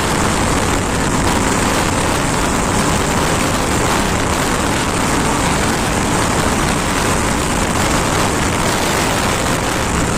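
Steady rushing wind noise on the microphone of a motorcycle being ridden, a KTM Duke 390, at an even, constant level.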